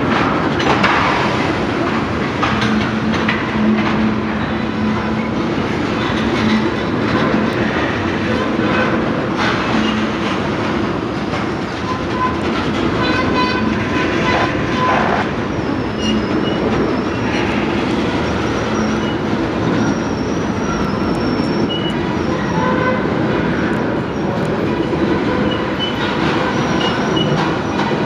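Freight train tank cars rolling past close by, their wheels clattering steadily over the rail joints. Through the second half, thin high-pitched wheel squeal rises and fades over the rumble.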